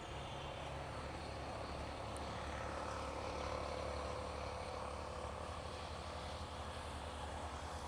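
A distant engine drone that swells about three to four seconds in and then eases off, over a steady low hum.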